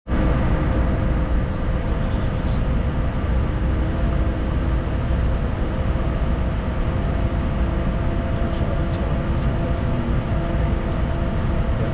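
Steady flight-deck noise of a Bombardier Challenger 350 on approach to land: rushing airflow and the hum of its twin turbofan engines, with a few steady tones over a deep rumble.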